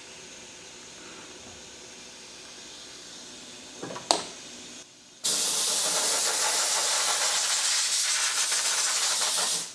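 Low steady machine hum, a short click about four seconds in, then a blast of compressed air starting suddenly about five seconds in: a loud, steady hiss that stops just before the end.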